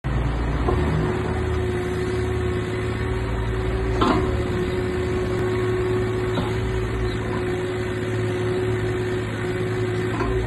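JCB 8026 CTS mini excavator's diesel engine running steadily under hydraulic load as the boom and dipper arm move, with a steady whine over the engine note. A couple of short knocks come about four and six seconds in.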